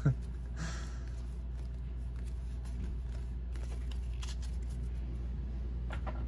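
Trading cards being handled: a brief rustle and sliding of card stock, then a few faint clicks, over a steady low hum.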